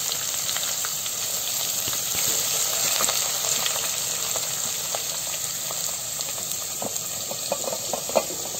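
Sliced onions sizzling in hot oil in a steel pot, a steady hiss as they are stirred with a wooden spatula. Near the end a quick run of light taps as more sliced onion is tipped in.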